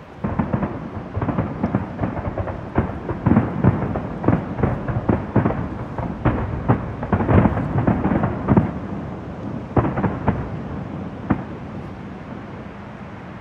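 Fireworks shells bursting in a rapid series of booms, several a second, then thinning to a few single bangs with the last about two seconds before the end.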